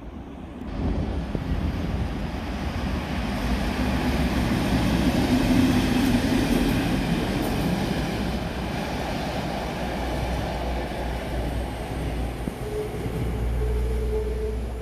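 Class 37 diesel locomotive passing close by with its train: engine and wheels on the rails. It grows to its loudest about midway, then eases off, with a steady tone coming in near the end.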